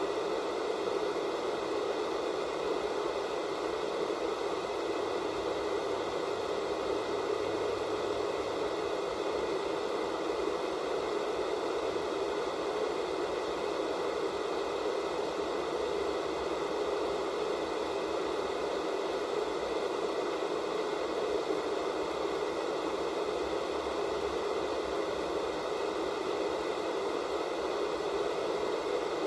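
Analog television static from a set with no signal: a steady, even hiss that never changes, fullest in the lower middle with faint steady tones above it.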